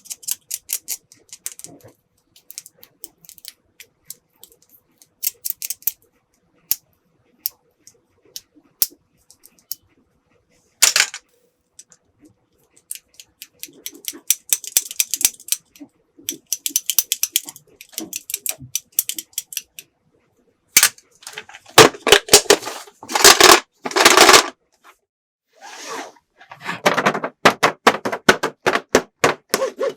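Hard plastic toy pieces clicking and clattering as they are handled and set down, with a run of loud knocks about 21 to 24 seconds in and dense clatter near the end.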